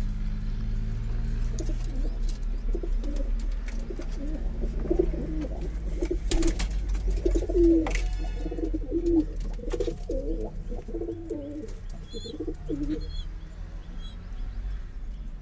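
Domestic pigeons cooing in a loft: many overlapping low, wavering coos from about two seconds in until near the end, over a steady low hum. A couple of sharp clicks come midway, and a few short high chirps near the end.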